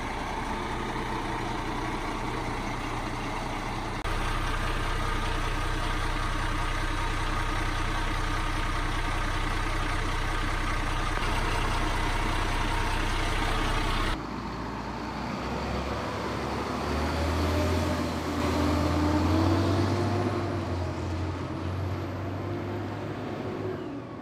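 Dennis Sabre fire engine's diesel engine idling steadily close by. About halfway through the sound changes abruptly to the engine heard from further off, revving with its pitch rising and falling.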